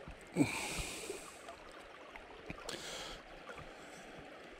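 River water lapping and trickling close to the microphone, with a short rushing sound about half a second in and a fainter one near the middle.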